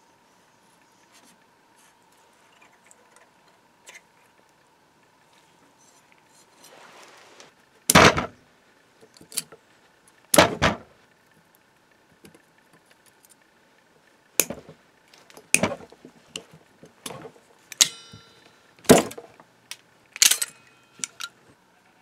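Faint scraping, then a series of about eight sharp metallic clicks and clinks as small pins are pried and pulled from a brass nameplate with a flat tool and needle-nose pliers and dropped onto a wooden bench; one clink near the end rings briefly.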